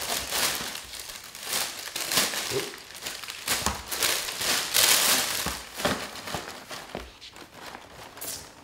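Tissue paper crinkling and rustling in repeated bursts as it is folded over a pair of sneakers in a cardboard shoebox. A few soft knocks come from the box as it is closed, and the rustling dies down near the end.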